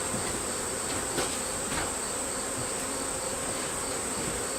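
Crickets trilling: a steady high-pitched trill, with a fainter chirp repeating a few times a second.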